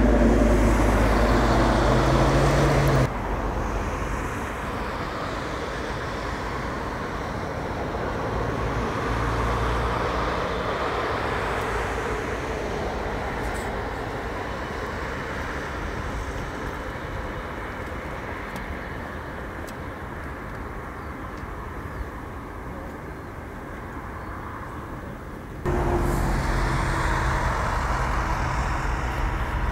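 Airbus A380's four Rolls-Royce Trent 900 turbofans running at taxi power: a steady jet rumble and whine. It is loud at first with a rising tone, drops suddenly about three seconds in to a quieter, more distant sound, and jumps back up about 26 seconds in.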